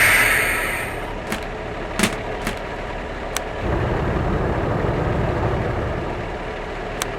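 Heavy-vehicle engine running at a steady low rumble that gets louder about halfway through, with a hiss of air fading over the first second and five sharp clicks spread through.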